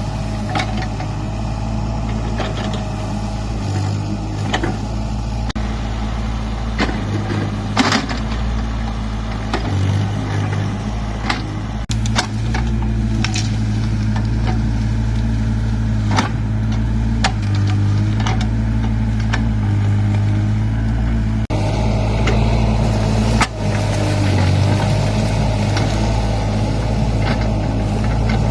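Mini excavator engine running steadily under load, with frequent sharp knocks and clanks from the machine as it works.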